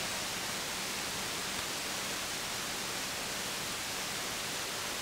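Steady hiss of static from a CB radio receiver tuned to 27.285 MHz, with no station coming through.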